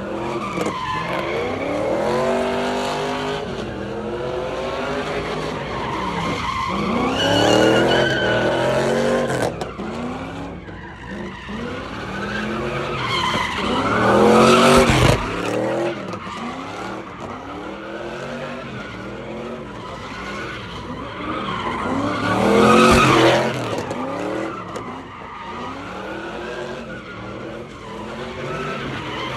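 A car doing donuts: its engine revs high in repeated rising and falling surges while the tires screech and skid. It swells louder three times as the car swings close.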